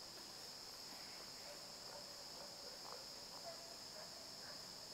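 Faint, steady insect chirring: an even, high-pitched drone with no strikes or voices over it.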